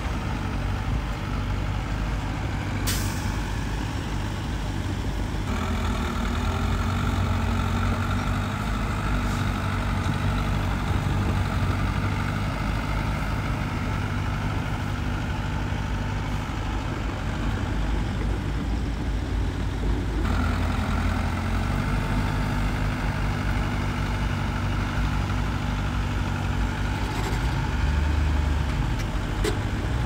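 Diesel engines of heavy earthmoving machinery running continuously, the engine note rising under load about five seconds in, dropping at about twenty seconds and picking up again just after. A brief sharp sound about three seconds in, and a couple more near the end.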